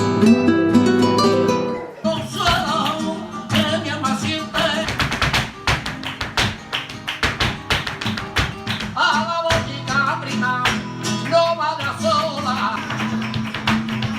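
Flamenco music: plucked guitar notes, then from about two seconds in a run of sharp percussive taps with guitar and a singing voice over them.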